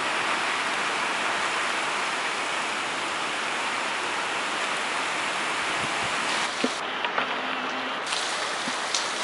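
Heavy hurricane rain driven by strong wind gusts, a steady rushing hiss with a few faint ticks of drops near the end.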